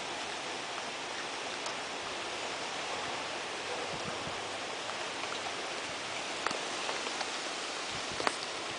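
Steady rain falling, with a few sharper drops striking close by near the end.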